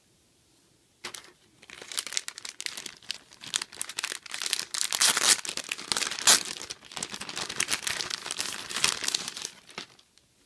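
Clear plastic bag crinkling as hands handle and open a packaged doll outfit. It starts about a second in and stops just before the end.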